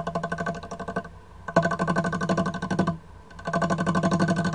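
A turning gouge taking passes on a mahogany blank spinning on a wood lathe's homemade 1-inch pin arbor. There are three bursts of fast, even ticking, each about a second and a half long, with short gaps between them, over the lathe's steady hum.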